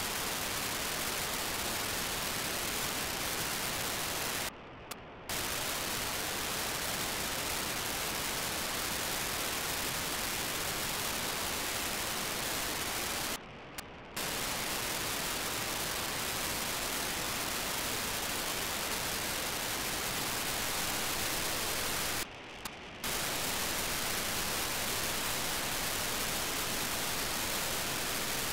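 Steady hiss of an RTL-SDR receiver demodulating FM on the BlueWalker-3 satellite's 437.5 MHz downlink. Three times, about nine seconds apart, the hiss drops for under a second to a quieter, duller sound: the satellite's 2400-baud FSK telemetry bursts quieting the receiver noise.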